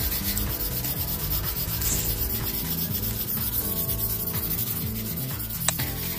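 Hand wire brush scrubbing a plastered exterior wall in quick back-and-forth strokes, the steel bristles scratching the old paint off in the rubbing-down before repainting.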